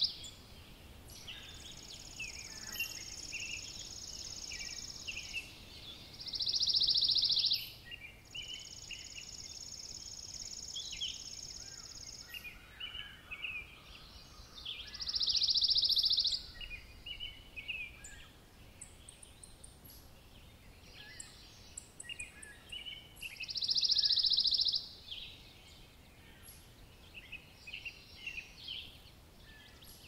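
Wild birds singing: a loud buzzy song about a second and a half long repeats four times, roughly every eight or nine seconds, with a long high thin trill twice in between and scattered softer chirps.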